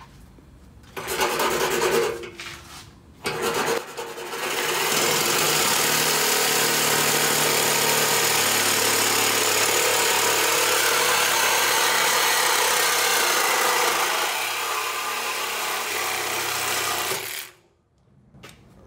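Handheld electric power tool cutting through the car's stock steel exhaust pipe. It comes in two short bursts about one and three seconds in, then runs in one steady cut for about thirteen seconds and stops abruptly near the end.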